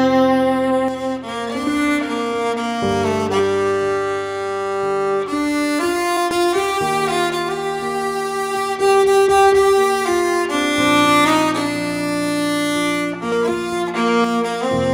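Slow instrumental music led by bowed strings, with long held notes over a low bass line and the chords changing every second or two.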